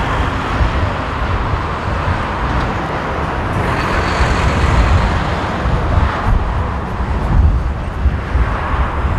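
Airbus A380-841 jet engines (four Rolls-Royce Trent 970 turbofans) running at low thrust as the airliner taxis slowly on the runway: a loud, steady jet rumble with a broad hiss and a faint high whine briefly near the middle.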